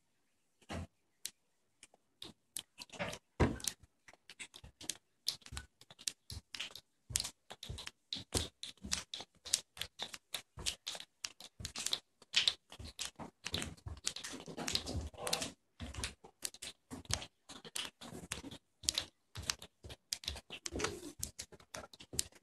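A class of young children imitating a thunderstorm shower with their hands. Scattered clicks and taps at first thicken into a dense patter of many small pats and claps.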